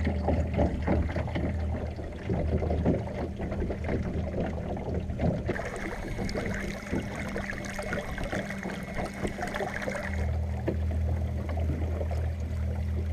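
Water splashing and lapping against the hull of an inflatable dinghy moving under an electric trolling motor, over a steady low motor hum. For a few seconds in the middle the hum drops away and the splashing is closer and brighter.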